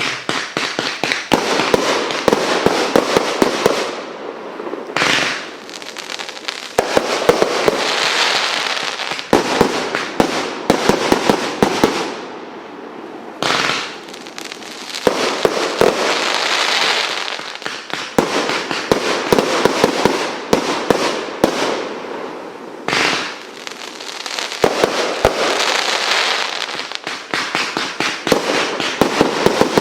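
Fireworks going off: dense crackling with many sharp pops, coming in waves with brief breaks about every nine seconds.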